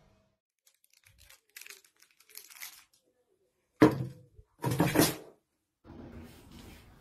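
Cardboard rustling and scraping: faint scratchy ticks, then a sharp loud rustle about four seconds in and a longer one right after.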